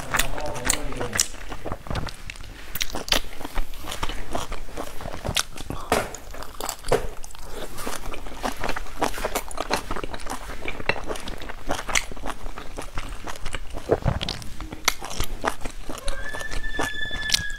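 Close-miked eating of dumplings: crunchy bites and wet chewing, heard as many small sharp clicks and smacks throughout. A short steady high tone sounds near the end.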